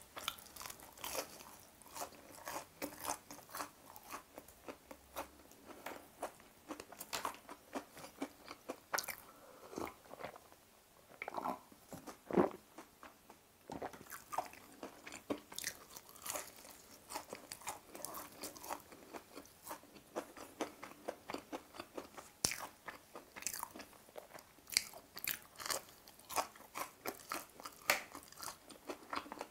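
Close-miked biting and chewing of a thin, crispy breaded fried chicken cutlet (Lotteria Z-Pie): a steady run of quick crisp crunches of the crust, with a louder crunching bite about twelve seconds in.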